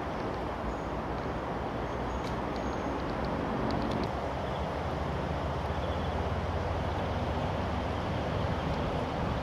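Steady rumble of distant road traffic, with a vehicle engine's low hum rising out of it from about the middle.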